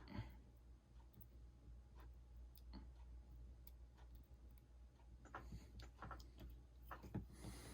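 Faint, scattered small clicks and taps of small tools on iPhone 6 parts during screen reassembly, coming more often in the last few seconds, over a low steady hum.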